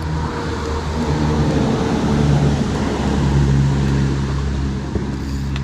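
A motor running steadily with a low hum, under a rushing noise that swells in the middle.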